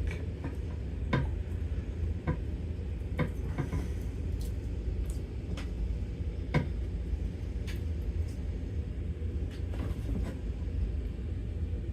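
Scattered light clicks and taps from small hand work, about one a second, over a steady low room hum.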